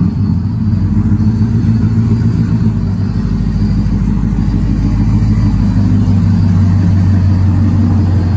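Chevrolet Silverado pickup's engine running steadily, heard from behind at the exhaust tip: a deep, even drone.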